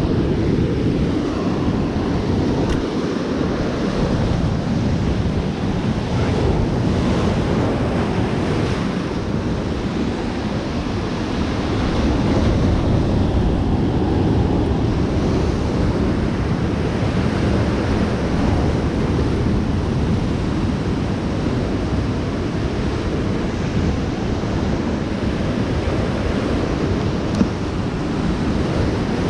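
Surf breaking and washing onto the beach, with wind buffeting the microphone.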